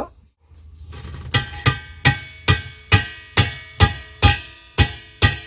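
Hammer tapping a brass insert sleeve into the end of an annealed copper gas pipe: about ten sharp, ringing metallic taps at a little over two a second, starting a little over a second in.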